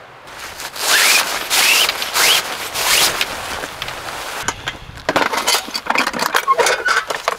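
Snow being scraped and crunched: three or four long scraping strokes with squeaky, rising tones, then a quick run of short crunches in the second half.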